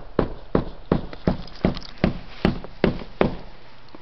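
Footsteps in snow: a brisk, even walk of about nine steps at under three a second, stopping a little before the end.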